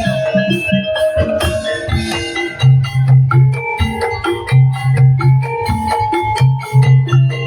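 Tongtek percussion ensemble playing: rapid bamboo kentongan and drum strikes under a melody on tuned percussion. Heavy bass notes repeat in groups of three.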